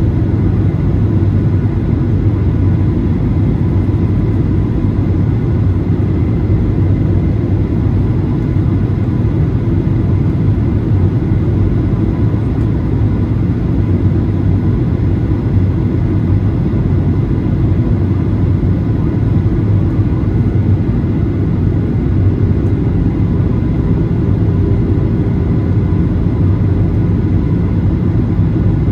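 Boeing 737-800 cabin noise from a window seat: steady engine and airflow noise from the CFM56-7B turbofans, mostly low and even, heard while the airliner descends toward landing. A faint extra hum comes in about three-quarters of the way through.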